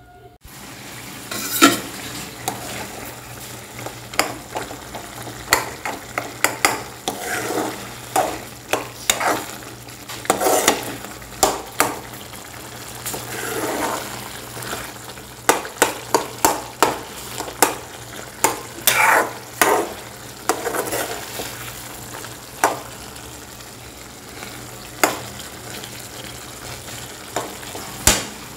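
Metal spoon stirring a potato curry in a metal pan, scraping and clinking irregularly against the pan over the steady hiss of the simmering liquid.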